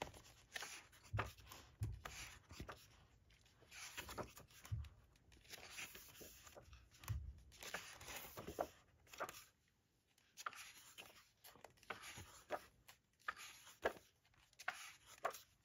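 Glossy pages of a hardback booklet being turned and handled: faint, irregular paper rustles and slides, with a few soft thumps as the pages settle.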